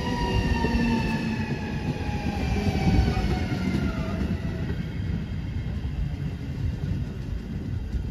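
JR Shikoku 7200 series electric train slowing as it pulls into a station: wheels rumbling on the rails under a whine that falls steadily in pitch as the train loses speed.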